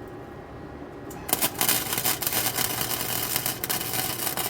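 Welding on a car's rusted sheet metal: a dense, steady crackle of the arc starts a little over a second in and runs about four seconds.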